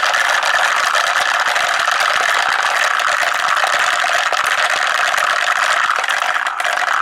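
Many marbles rolling and clattering together down wooden marble-run tracks, a dense, steady rattle of countless small clicks.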